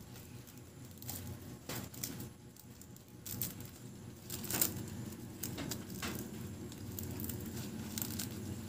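Light rustling and scattered sharp clicks of hands pulling and knotting twine cord to tie off a hammock's suspension lines, over a low steady hum.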